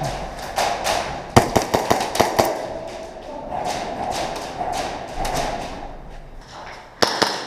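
WE GP1799 gas blowback airsoft pistol firing a quick string of about six sharp shots about a second and a half in, with another sharp double crack near the end.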